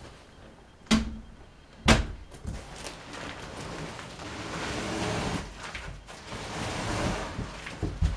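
A large, heavy cardboard shipping box being handled: two sharp knocks about a second apart, then a long rough scraping as the box is shoved across the floor, and another knock near the end as it is set against the wall.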